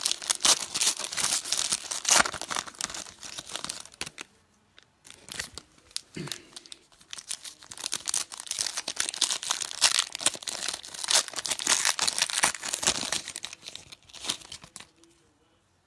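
Foil football card pack wrappers being torn open and crinkled by hand, in bouts of dense crackling with short lulls about four and seven seconds in, tailing off near the end.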